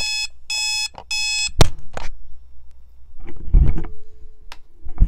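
Electronic alarm clock beeping in short pulses about two a second, three beeps, then cut off by a sharp click, the loudest sound here. Later come low knocks and rattling.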